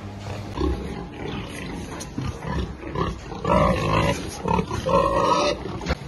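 Domestic pigs grunting in a pen, with two louder, higher squeals, one about halfway through and one near the end.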